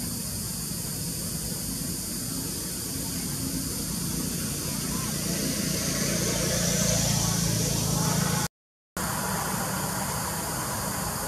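Steady outdoor background noise, with the low rumble of a vehicle engine swelling up over several seconds. It drops out to silence for about half a second partway through, then the steady noise returns.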